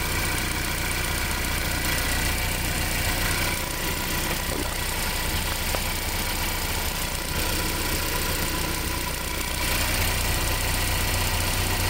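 A 2012 Ford Focus engine idling steadily, with the alternator charging.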